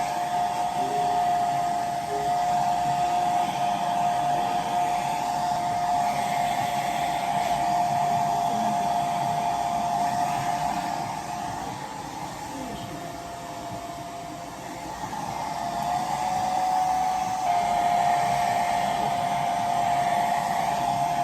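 Handheld hair dryer running on its high setting, a steady airy rush with a whine. It dips and goes softer for a few seconds past the middle, then comes back up to full strength.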